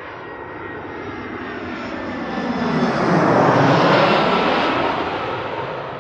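Airbus A319-114 jet on landing approach passing low overhead: its engine roar swells to a loud peak about three to four seconds in, then fades. A sweeping whoosh falls in pitch as it goes by.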